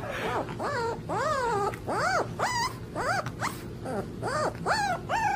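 A puppy howling in a quick run of short calls, each rising and then falling in pitch, about two a second.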